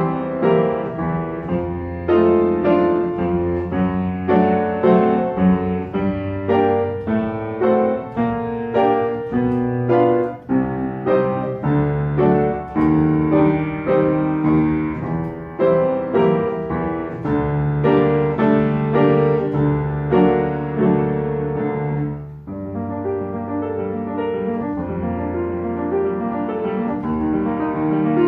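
Solo piano played at a lively pace, with quick runs of notes over held bass notes. It breaks briefly about 22 seconds in, then carries on more softly.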